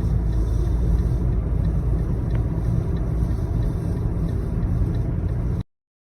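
Steady low rumble that cuts off abruptly near the end.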